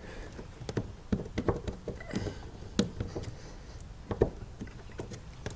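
Irregular light clicks and taps of a Sharpie marker and a plastic hatch ring being handled on a plastic kayak deck while screw-hole positions are marked.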